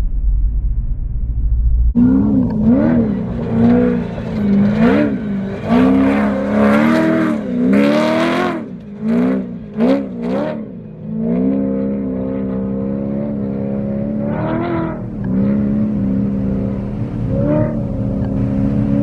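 Off-road race vehicle's engine revving hard, its pitch climbing and dropping over and over, then holding a steadier note from about halfway with a few short blips. The first two seconds hold only a low rumble.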